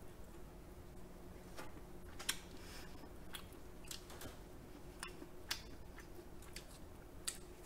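Quiet eating sounds: scattered sharp clicks, about eight of them, from chewing crab meat and handling shell pieces in gloved hands.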